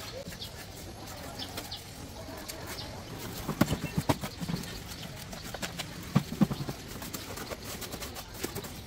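Light knocks and clicks on a hard object, in a cluster about three and a half seconds in and another about six seconds in, over a low steady background.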